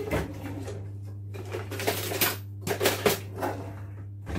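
Kitchen utensils clicking and clattering as someone rummages for something in a drawer or cupboard, in several short clusters, over a steady low hum.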